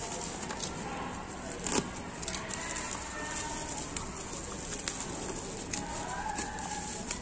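Plastic bubble wrap crinkling and crackling as it is handled and pulled off, with scattered sharp crackles, the loudest about two seconds in, over a steady background noise.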